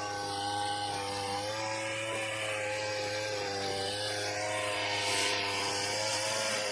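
Chainsaw engine running steadily, its pitch wavering slightly, with a rise in hiss about five seconds in.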